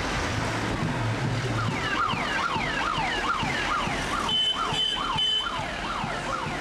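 Ambulance siren: a fast electronic yelp, rising and falling nearly three times a second, starting about two seconds in. A steady high tone sounds over it for about a second near the middle.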